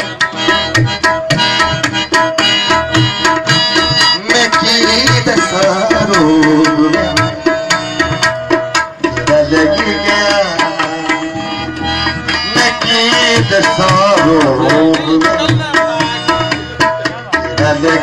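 South Asian music: tabla playing a steady run of strokes under a held drone and a melodic line that slides between pitches.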